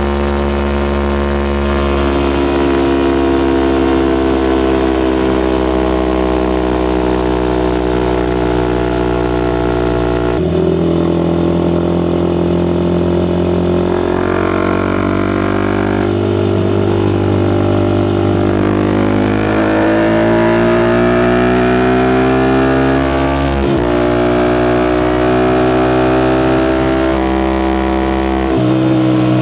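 Suzuki Gixxer SF 250's single-cylinder engine through a Yoshimura R11 exhaust while riding. The engine note rises and falls with the throttle, and it jumps sharply in pitch several times as gears change.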